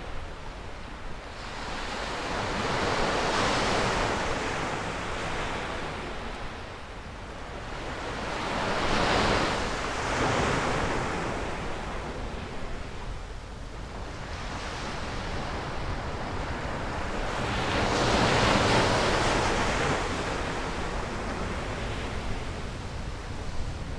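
Sea surf breaking and washing up a sandy beach, swelling three times as waves come in, loudest about 3, 9 and 18 seconds in. Wind rumbles on the microphone underneath.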